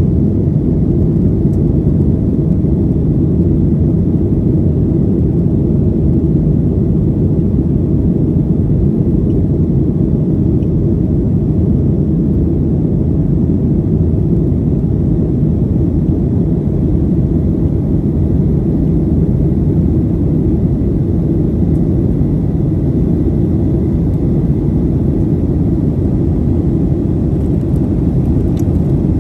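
Steady low rumble inside the cabin of a Boeing 737-800 in flight: the CFM56 engines and airflow over the fuselage, unchanging throughout.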